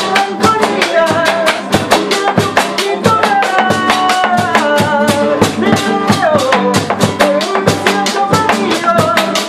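Live Argentine folk music: a bombo legüero beaten with two sticks in a fast, steady beat, a nylon-string guitar strummed, a güiro scraped, and a man singing the melody.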